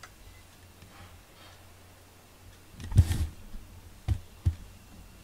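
Handling noise on the camera microphone as the cat's face and fur rub against it: a loud rustle about three seconds in, then two dull thumps.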